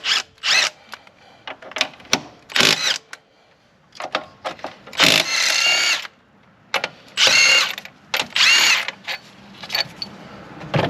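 A power tool with a 13 mm socket spinning out the alternator mounting bolts on a Ford 6.0 Powerstroke diesel. It runs in about five short bursts, each rising and falling in pitch and the longest about a second, with small clicks of the socket and bolts between them.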